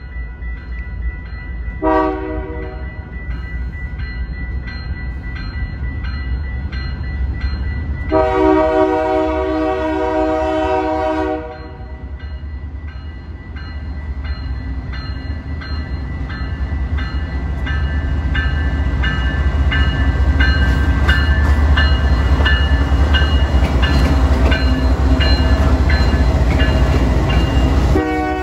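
Diesel freight locomotive's air horn sounding a short blast about two seconds in and a long blast around eight seconds, with another starting at the very end, while a bell dings steadily. The locomotives' engine rumble and clacking wheels then grow louder as the train passes close by.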